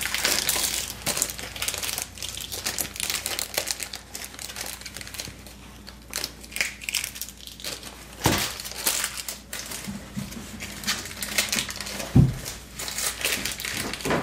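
Clear plastic protective wrapping on an action figure crinkling as it is handled and pulled off, along with cloth rustling. Two soft knocks, about eight seconds in and again near twelve seconds.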